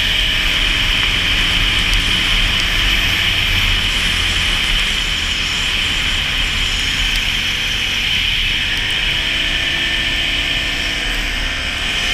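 Can-Am Renegade 570 ATV's V-twin engine running under way, with wind rumbling on the helmet-mounted microphone. About two-thirds of the way through the engine note rises and then holds as the machine speeds up.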